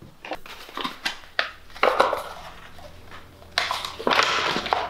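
Paper crackling and rustling as a folded letter is unfolded and handled: a run of sharp crinkles, with louder rustles about two seconds in and again near the end.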